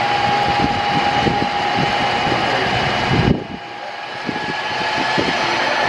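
Model diesel locomotives running along a model railroad layout: a steady hum with a thin, constant whine and irregular low rumbling. The sound drops suddenly a little past halfway, then builds back up.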